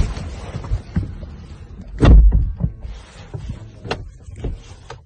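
Irregular knocks and bumps with a low rumble inside a car cabin, with one loud, heavy thump about two seconds in.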